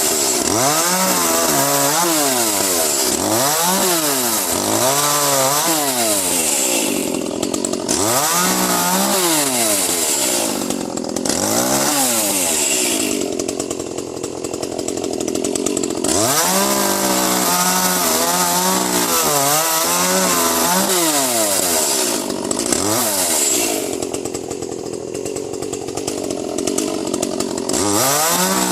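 Echo CS 310 30.5 cc two-stroke chainsaw revving up and down again and again while cutting into a pine trunk held under tension, with a few longer stretches at steadier revs.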